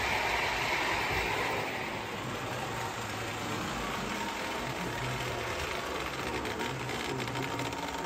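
Lionel No. 671 O-gauge turbine locomotive running along three-rail track with passenger cars in tow: a steady whir of its electric motor and gearing with the rolling of metal wheels on the rails.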